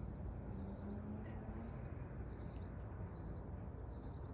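A small bird chirping over and over, a short high chirp roughly every half second to second, over a steady low background rumble.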